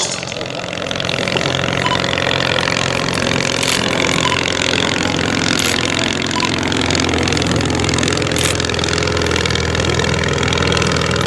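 English Electric Wren ultralight's small ABC two-cylinder engine running steadily in flight, freshly overhauled, getting a little louder about two thirds of the way through.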